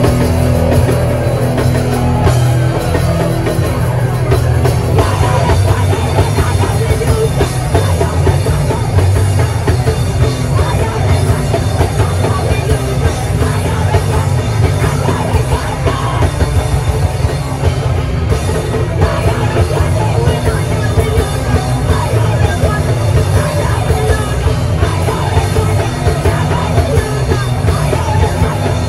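A live band playing loud heavy rock with a pounding drum kit, heard from within the crowd in a small club.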